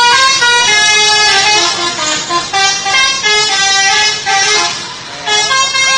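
A bus's telolet horn playing a tune: several horn tones at once, stepping up and down in pitch note after note. It dips briefly about five seconds in, then starts up again.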